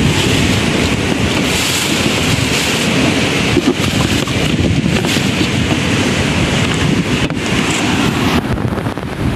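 Strong wind buffeting the microphone: a steady, loud, rough rumble with a hiss above it.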